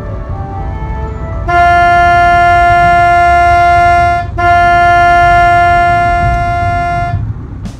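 Semi truck's air horn sounding two long, loud, steady blasts, the first about a second and a half in, a short break, then a second of about the same length, over a low road rumble.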